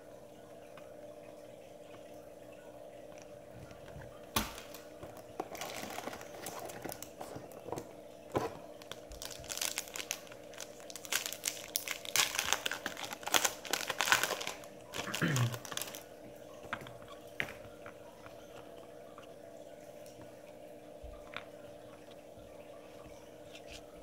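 Foil trading-card pack wrapper crinkling and tearing as it is opened, a dense run of rustling from about four seconds in to about sixteen seconds in. Before and after it there is only a faint steady hum and a few light clicks.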